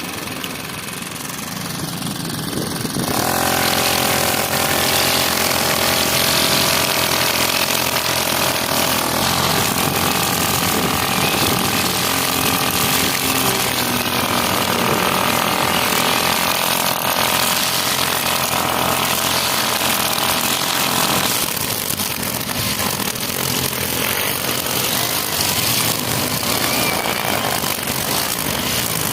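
Small string trimmer (brush cutter) engine running. About three seconds in it speeds up into a steady high-pitched run, then about twenty-one seconds in it drops back to a lower, rougher running speed.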